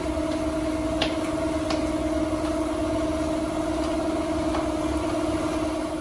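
A steady, slightly wavering machine hum with a low rumble beneath it, and two faint clicks about a second and a second and a half in.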